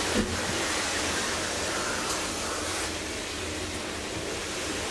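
Schindler hydraulic elevator car travelling between floors: a steady hum and rushing noise from its hydraulic drive, with a light click about a quarter second in.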